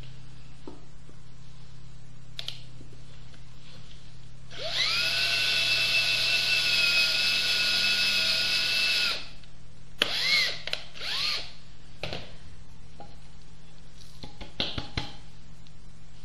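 Electric drill boring a hole into a wooden board: the motor spins up about four and a half seconds in, runs steadily for about five seconds and stops, then gives a few short spurts on the trigger. A few knocks follow near the end.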